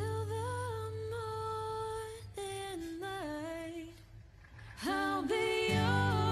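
Background pop love song: held sung notes over soft accompaniment with a steady low bass. The bass drops out about two seconds in and the music nearly stops for a moment past the middle, then the voice comes back with a rising slide and the bass returns.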